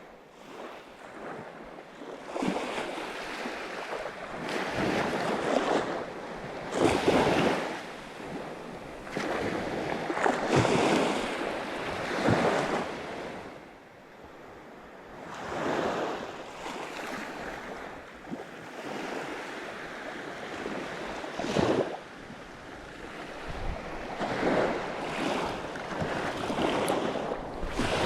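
Sea waves breaking and washing in against the shore, surging and receding every few seconds.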